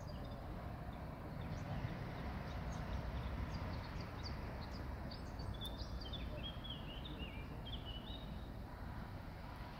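Wind noise on the microphone, a steady low rumble, with a small bird chirping a quick run of short notes about halfway through.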